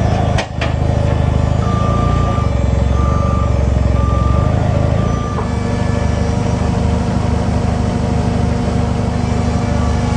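Portable sawmill's engine running steadily, working the mill's hydraulics as the log is turned. An electronic warning beeper sounds four times in a row about two seconds in, and there is a sharp knock just before that.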